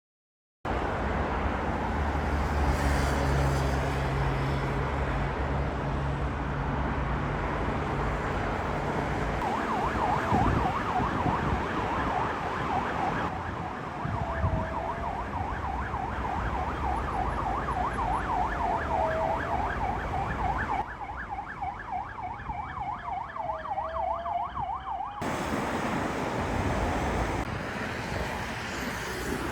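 Emergency vehicle siren sounding in fast warbling cycles from about ten seconds in until about twenty-five seconds in, over street traffic noise with a low vehicle engine hum early on.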